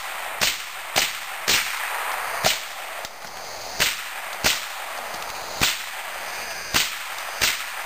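.22 rifle fired in a rapid string, nine sharp shots spaced from about half a second to just over a second apart.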